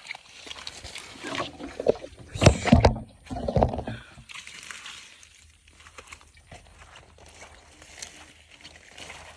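Water splashing and sloshing, loudest in a burst of heavy, irregular splashes and knocks between about one and a half and four seconds in, then quieter sloshing.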